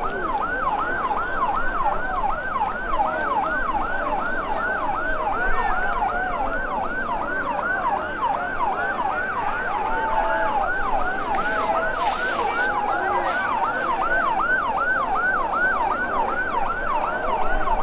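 Fire engine's electronic siren in a rapid yelp, its pitch rising and falling about two and a half times a second without a break.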